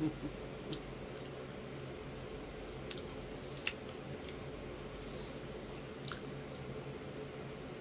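A person chewing creamy shrimp fettuccine Alfredo with the mouth close to the microphone: faint wet chewing with a few scattered small smacks and clicks.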